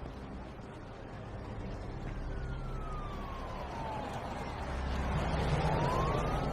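Police car siren wailing, its pitch sliding down slowly and then climbing again near the end, over the low hum of a vehicle. It grows louder toward the end, as if approaching.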